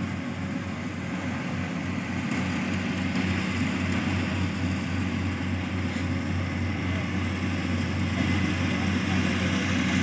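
Daedong combine harvester's engine running steadily in a low drone, growing slightly louder toward the end.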